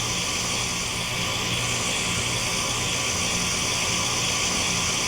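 Outdoor heat-pump unit of a central air system running through its defrost cycle: a steady compressor hum under an even hiss.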